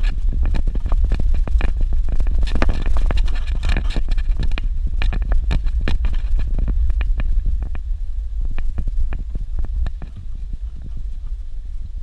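Car driving over a rough dirt road: a steady low rumble with many sharp knocks and rattles, heaviest a few seconds in.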